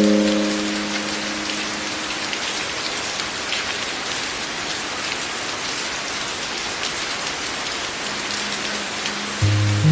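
Steady rain falling on a surface, an even hiss with distinct drops ticking through it. A held musical chord fades out in the first second, and another comes in near the end.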